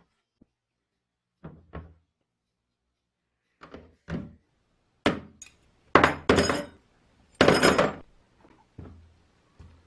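Old copper sprayer tank knocked down into an empty plastic tub. Then small metal parts (screws, springs, nuts) are dropped in, clattering against the plastic. The loudest is a rattling burst of parts a little before the end.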